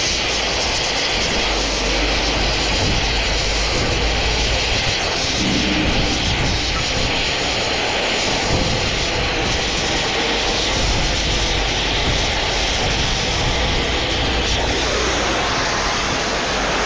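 A steady, loud mechanical drone with a low rumble underneath, unchanging throughout.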